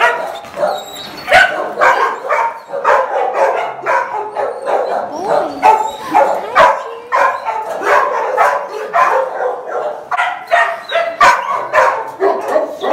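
Several kennelled shelter dogs barking continuously, the barks overlapping with no pause.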